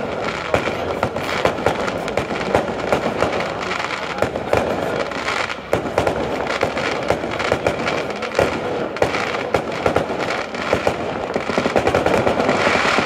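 Daytime Italian firework battery (batteria) of firecrackers and aerial bangs going off: a dense, unbroken rattle of sharp reports, many each second, growing denser and louder near the end.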